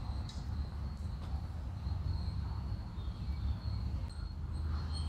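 Insects chirping in the trees: a steady high trill with short chirps repeating about twice a second, over a steady low rumble.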